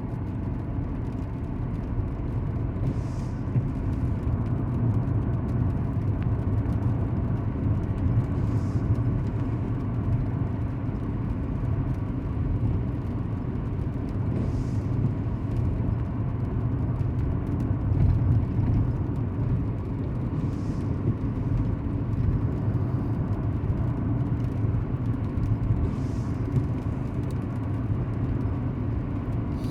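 Truck engine and road noise droning steadily inside the cab while driving. A faint swish comes about every six seconds.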